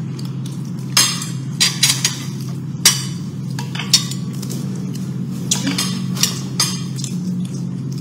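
Chopsticks and utensils clicking and clinking against dishes during a meal: a handful of sharp clinks scattered over a few seconds, over a steady low hum.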